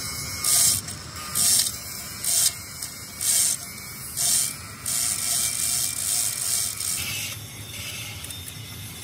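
Pressurised spray hissing in short bursts about once a second, then running more steadily from about five seconds in.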